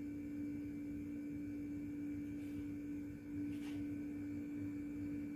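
A quiet, steady electrical hum on one low pitch, with two faint brief noises about two and a half and three and a half seconds in.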